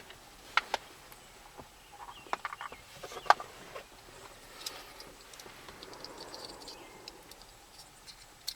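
Scattered small plastic clicks and knocks as an auxiliary switch panel's housing pieces are handled and slid back together, with the sharpest click about three seconds in.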